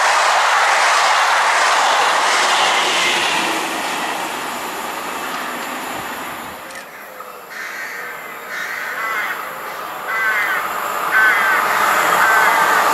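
A double-deck VB2N push-pull train passes at speed, its running noise fading after a few seconds. Crows then caw about once a second. Near the end the rising running noise of a second train, a Regio 2N, approaches.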